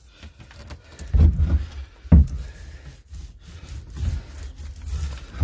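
Wood knocking and rubbing as a timber boat stringer is handled and pushed into place in the hull, with two heavier dull thumps about one and two seconds in.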